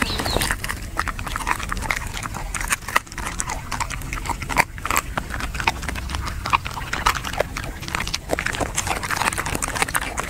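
A dog chewing and crunching fish, a run of irregular sharp crunches and clicks several times a second.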